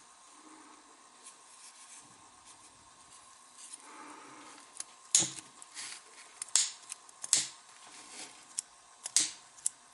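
Sharp, isolated metal clicks from the small parts of a vintage butane lighter being handled and worked. The clicks come irregularly in the second half, after a quiet start.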